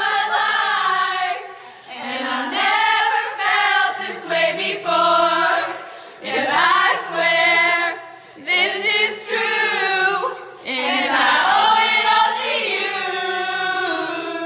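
A group of young men and women singing together, their voices in loose unison, in sung phrases with short pauses between them.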